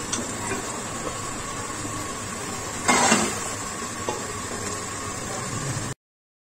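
A metal ladle scrapes and knocks against a pressure-cooker pot and a glass dish while thick cooked black chickpeas are scooped out, with the loudest scrape about three seconds in, over a steady hiss. The sound cuts off abruptly near the end.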